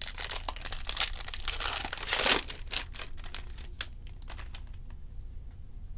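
A Topps baseball card pack's wrapper being torn open and crinkled, with a dense crackle that is loudest about two seconds in, then a few lighter crinkles and clicks as the cards come out.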